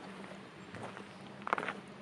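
Footsteps crunching on gravel, a few soft steps and then a louder crunch about one and a half seconds in, over a faint steady low hum.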